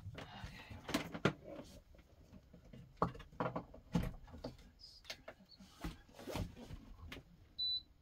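Handling noises as cables are plugged in and a portable power station is worked by hand: a string of scattered clicks and knocks. Near the end comes a single short high electronic beep.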